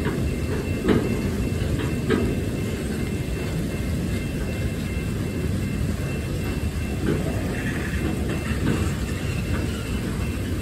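Freight train of loaded flatcars rolling past: a steady low rumble of steel wheels on the rails, with a few sharp knocks from the wheels.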